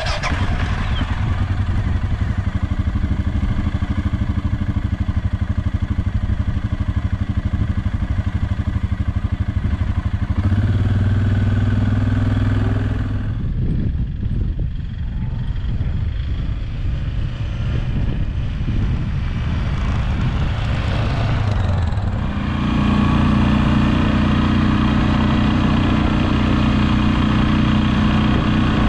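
Suzuki KingQuad 750 ATV's single-cylinder engine running as it is ridden, picked up close from the handlebars. The engine note steps up and gets louder about ten seconds in and again past twenty seconds, with a quieter stretch around fourteen seconds.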